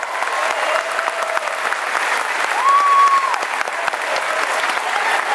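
Audience applauding, a dense steady clapping, with one short high held note sounding a little past halfway.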